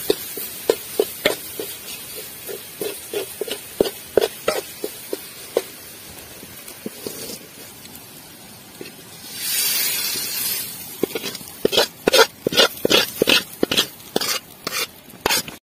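A metal spoon scraping and clinking against a metal pot as thick, nearly dry eel fry is stirred, with a short hiss about halfway through. Toward the end come quicker, louder scrapes as the fry is scooped out of the pot onto a banana leaf.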